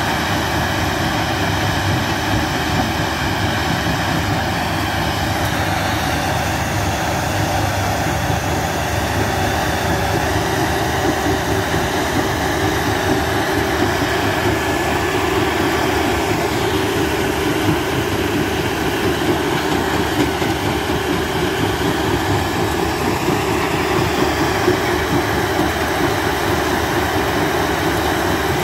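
Rebel mobile jaw crusher running under load, crushing concrete blocks: a steady, loud mechanical din of engine and rattling broken concrete, with small irregular knocks.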